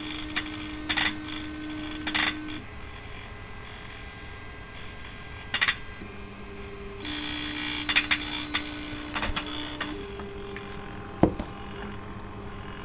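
Motors of a prototype concrete 3D printer running as it prints: a steady motor whine that stops and changes pitch every few seconds as the moves change, with scattered sharp clicks and one louder knock near the end.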